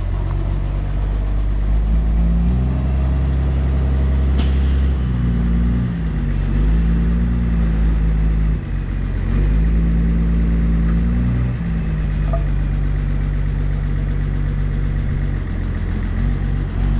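Engine of a truck-mounted crane running, its revs stepping up and down repeatedly as the hydraulic boom lifts a long concrete power pole. One sharp knock about four seconds in.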